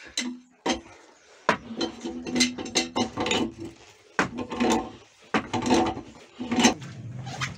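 Pipe wrench gripping and turning a corroded brass pipe coupling, a series of sharp metallic clicks and scraping as the seized fitting is worked loose.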